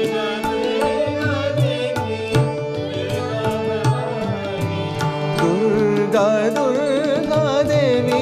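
Devotional bhajan music in raag Kedar: harmonium holding steady tones over tabla strokes in keherva taal. A wavering, gliding melody line comes in over it about six seconds in.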